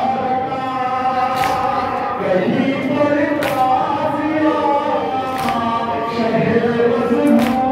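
A male noha reciter chanting a Shia lament (noha) into a microphone in long, held sung lines, with other voices chanting along. A short sharp accent sounds about every two seconds.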